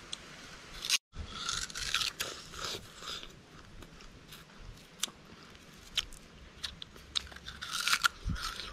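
Raw sugar cane being bitten and chewed: crunching and tearing of the fibrous stalk, loudest in a spell a second or two in and again near the end, with scattered small cracks between. The sound cuts out for an instant about a second in.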